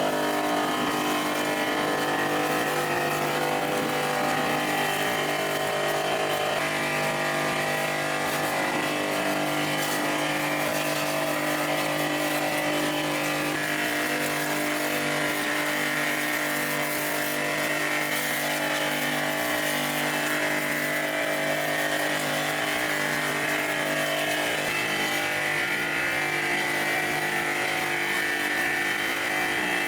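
A motor-driven machine or power tool running steadily, with a constant hum that holds one pitch throughout.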